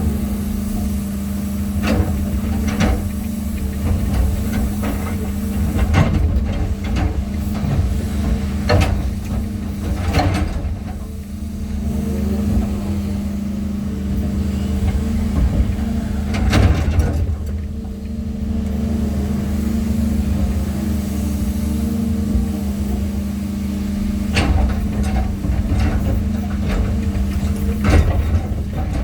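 Excavator's diesel engine running steadily under load while natural boulders are set in place, with irregular knocks and clunks of stone and machinery.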